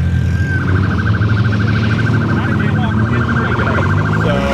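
A police siren sounding a high tone that starts about half a second in and quickly turns into a fast, even pulsing. A low steady drone runs underneath.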